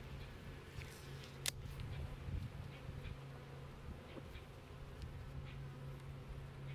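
Swarm of Russian honeybees buzzing, a steady low hum, with a sharp click about a second and a half in and a few faint ticks from handling.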